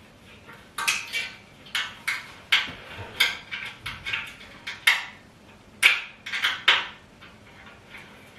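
About a dozen sharp, irregular clicks and knocks of hard parts and hardware being handled and fitted while a flat-pack dining table is put together. They start about a second in, are loudest around six seconds in, and stop about a second before the end.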